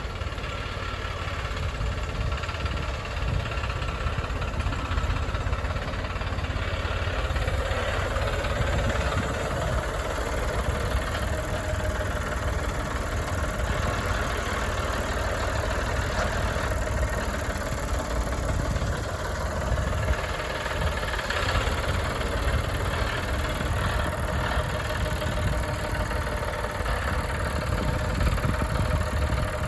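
A vehicle engine idling steadily, a constant low rumble.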